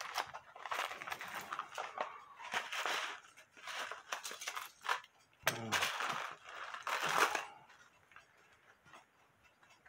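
Hands handling small metal clock parts, with irregular clinks, rattles and rustling as they sort through a plastic tub of parts and work on a cuckoo clock movement.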